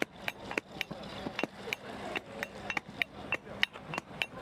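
Rapid, irregular sharp clicks, about three to four a second.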